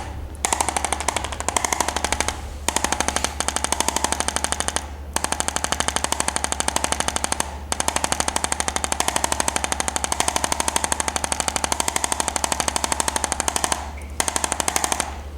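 Handheld electric percussion massager hammering rapidly and evenly, in stretches of a few seconds with short breaks about five times, stopping near the end.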